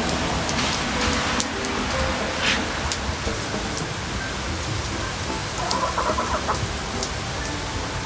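Heavy rain falling steadily on a concrete yard, with chickens clucking now and then; a short chicken call stands out about six seconds in.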